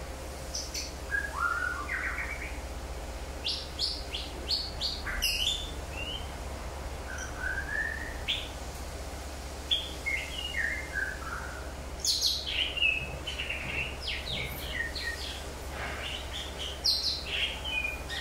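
Several wild birds chirping and calling in short, scattered notes and quick rising and falling whistles, a few overlapping at a time.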